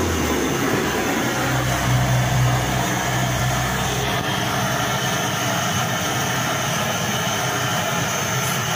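Handheld blowtorch burning with a steady rushing noise as its flame singes the hair off a hanging goat carcass. A low hum underneath is stronger for a few seconds near the start.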